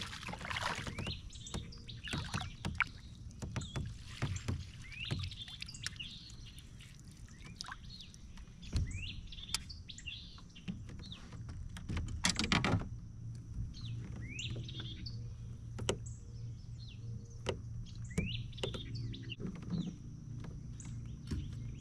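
Repeated short bird chirps, with scattered knocks and splashes of a bass being netted and handled in a kayak, and a brief louder burst of noise about halfway through.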